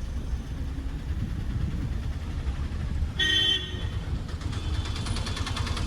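Steady low rumble of a vehicle on a rough road, with a short horn toot about three seconds in.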